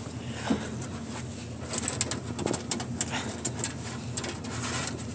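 Handling noises in a car's bare metal trunk: a run of short clicks and taps through the middle, over a steady low hum.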